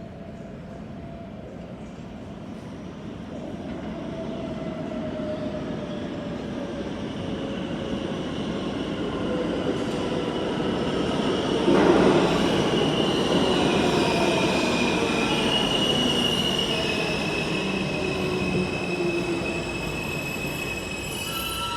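Subway train approaching and growing steadily louder, its wheels squealing in several shifting high tones, with a sharp clack about twelve seconds in as it draws close.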